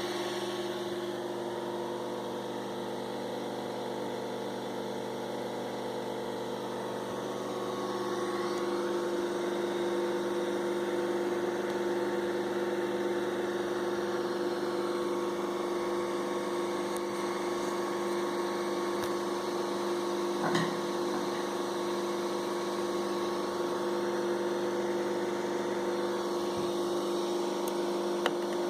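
Anet A8 3D printer's two Z-axis stepper motors driven during homing: a steady whine made of several fixed tones, growing louder about eight seconds in. One motor vibrates and stutters instead of turning smoothly, a fault the owner puts down to the Z driver or the motors.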